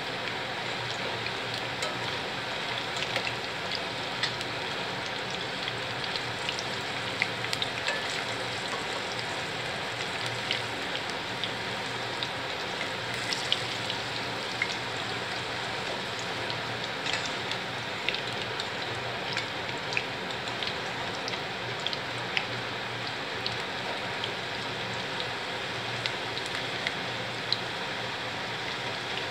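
Banana-flower bajji fritters in gram-flour batter deep-frying in hot oil: a steady sizzle with frequent small crackling pops.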